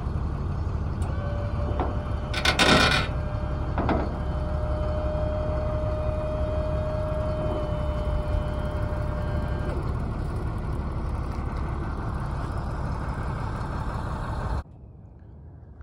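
Box truck's dual-piston hydraulic liftgate being powered up into its stowed position. The pump motor runs steadily with a whine for much of it, metal clanks come about two and a half and four seconds in, and the pump cuts off abruptly near the end once the gate is stowed.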